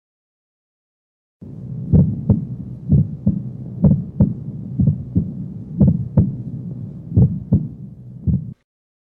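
Auscultation recording of heart sounds demonstrating a split first heart sound: regular lub-dub beats, a little under one a second, over a low steady hum. It starts about a second and a half in and cuts off shortly before the end.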